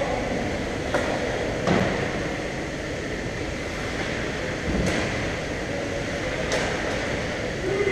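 Ice hockey rink play: a steady rushing scrape of skates on the ice, broken by four sharp knocks, about one second in, just under two seconds in, at about five seconds and near seven seconds.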